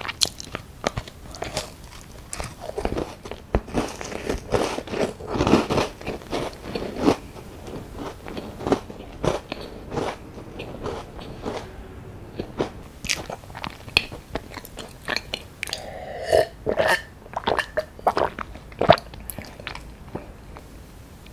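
Close-miked biting and crunchy chewing of a crisp strawberry-jam tart biscuit, with a bite right at the start followed by irregular crackling chews. The jam sticks to the teeth.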